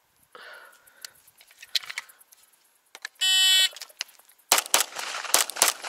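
Shot-timer start beep, one steady electronic tone about half a second long. About a second later comes a fast string of pistol shots from a Springfield Armory 1911 DS Prodigy, several shots a fraction of a second apart.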